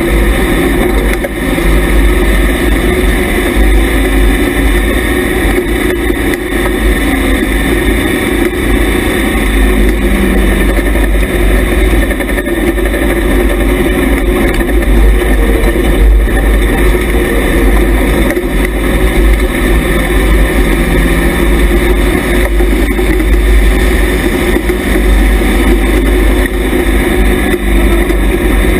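IMCA Hobby Stock dirt-track race car's engine running hard while racing, heard loud and steady from inside the car.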